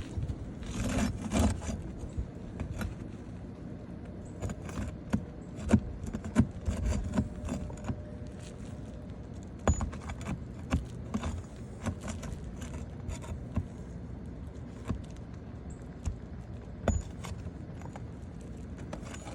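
Metal hand tools clinking, tapping and scraping against roofing nails and asphalt shingles as the nails are worked loose: a scraping stretch about a second in, then scattered sharp clicks and knocks.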